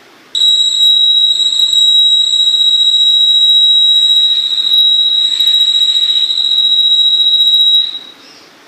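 Electronic buzzer on a model rotating bridge sounding one steady, loud, high-pitched beep of about seven and a half seconds, starting just after the start and cutting off near the end, while the bridge swings round into line with the railway track: a warning that the bridge is moving.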